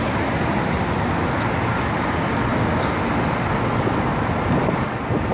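Steady road-traffic noise from cars and vans driving around a cobbled roundabout.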